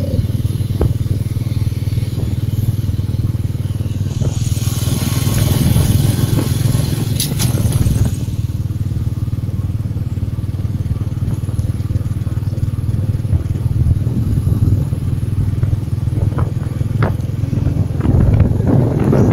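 Motorbike running steadily at road speed, with wind rumbling on the microphone. A truck passes close alongside near the end, and the noise swells.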